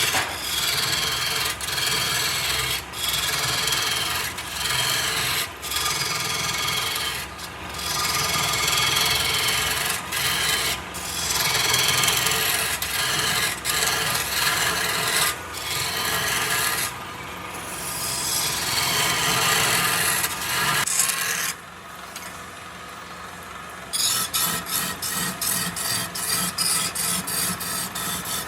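Wood being cut or sanded on a running wood lathe: a harsh scraping and rasping against the spinning wood, in long stretches broken by short pauses. Near the end, after a brief quieter spell, it turns into a quick, even ticking rhythm.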